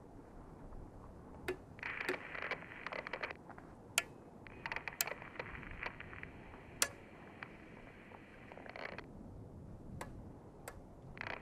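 Faint, sparse film sound effects: sharp cracks every second or two, with short stretches of crackling, crunching noise in between.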